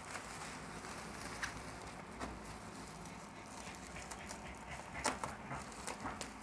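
Plastic bubble wrap rustling and crinkling as it is handled around a parcel, with scattered sharp crackles, a louder cluster about five seconds in.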